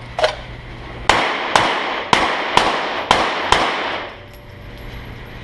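Glock 17 Gen4 9mm pistol firing six shots in quick succession, about half a second apart, each with a short ringing tail. A fainter sharp crack comes about a second before the first shot.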